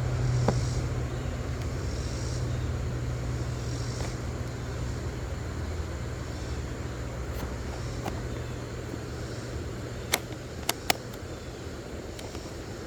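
Low rumble of a passing motor vehicle, slowly fading away, then three sharp clicks close by near the end.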